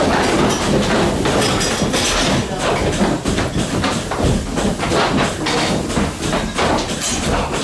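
Goat milking parlour noise: irregular metal clatter and knocks over a steady low machine rumble.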